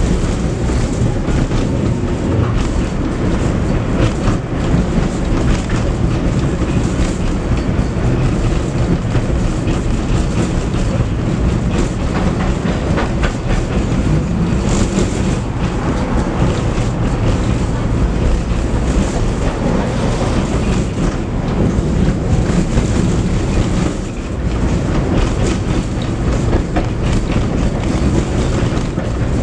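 Tram running along the track: a steady rumble of wheels and running gear on the rails, with occasional clacks over rail joints, heard from inside the car.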